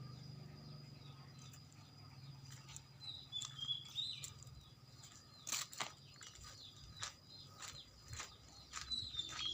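Faint scattered taps and short flutters from pigeons, with a few brief high bird chirps about three seconds in and near the end.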